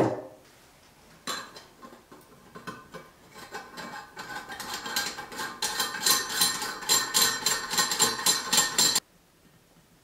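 Metal sink-drain fitting being handled and screwed up against a ceramic basin: a sharp click, then a fast stream of metallic clicking and clinking with a ringing tone. It grows denser and louder over several seconds and cuts off abruptly near the end.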